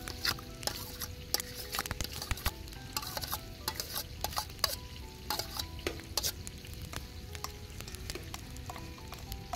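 A metal spoon scraping and clinking against a stainless-steel plate and bowl, with short metallic pings, as a thick white paste is scraped off the plate and stirred in the bowl. The clinks are dense for the first six seconds or so, then thin out to quieter stirring.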